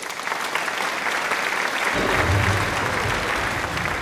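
Applause: many hands clapping in a dense, steady patter. It greets a point won in the badminton game. A low rumble joins about halfway through.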